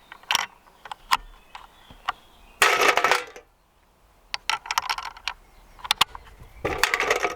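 Rifle cartridges being loaded by hand: scattered metallic clicks and short clatters of brass against metal, busiest about three seconds in and again near the end.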